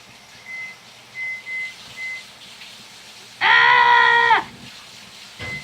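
A child's drawn-out "ahh" squeal of disgust, about a second long and level in pitch, near the middle. Before it come a few faint, short high-pitched squeaks.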